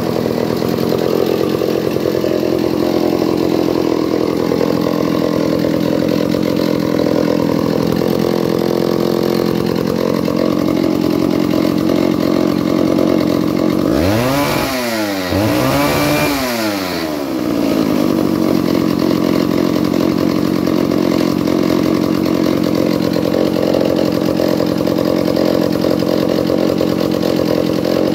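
An old McCulloch Mac 250 two-stroke chainsaw idling steadily. About halfway through, the throttle is blipped twice in quick succession, the engine pitch rising and falling each time, before it settles back to idle.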